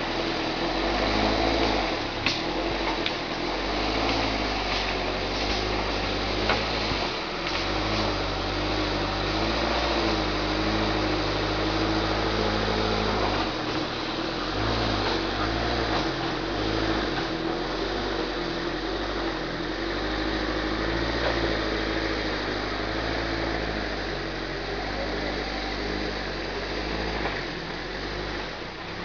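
Engine of a homemade forwarder running steadily, its pitch dipping and recovering several times, with a couple of sharp knocks in the first seven seconds.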